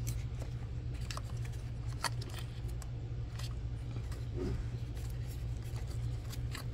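Plastic wiring-harness connectors being handled and pressed onto ignition coil packs: scattered small clicks and rustles at irregular moments over a steady low hum.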